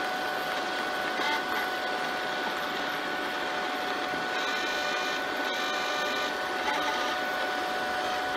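Sterling robot vacuum cleaner running, its motors giving a steady whir with a constant high tone. For a couple of seconds around the middle an extra higher-pitched whirring joins in. The owner believes the gear in its right drive wheel is worn.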